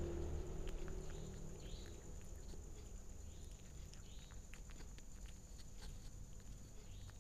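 A cat eating close up: soft, irregular clicks and smacks of chewing and licking at its food. A low rumble fades out over the first second or two.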